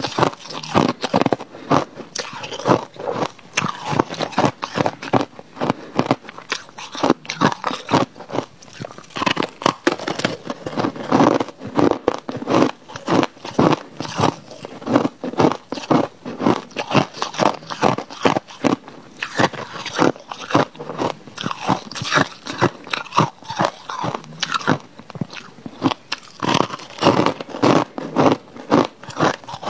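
Crushed white ice being bitten and chewed, a dense, unbroken run of loud crunches, several a second.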